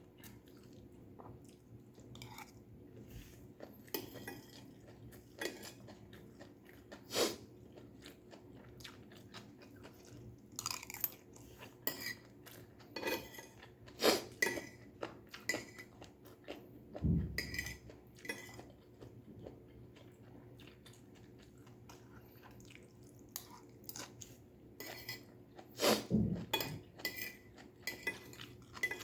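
Close-up chewing and crunching of stir-fried vegetables, with scattered light clinks of cutlery against a dish. A dull thump comes twice, once about midway and once near the end.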